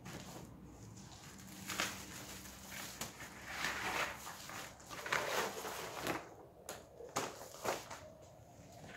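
A gasket kit's packaging rustling and crinkling as it is opened and the gaskets inside are sorted through, in irregular bursts with a few short clicks.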